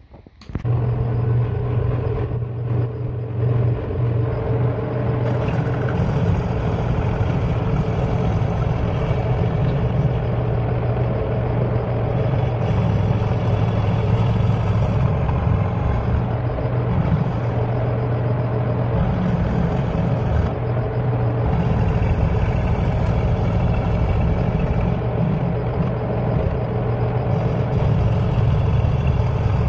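Milling machine running under load, a long spiral end mill side-cutting the edge of a forged steel bar: a loud, steady machine hum with the noise of the cut over it, starting suddenly about half a second in.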